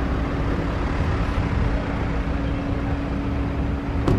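Steady outdoor background noise: a low rumble with a constant hum through it, and one short click near the end.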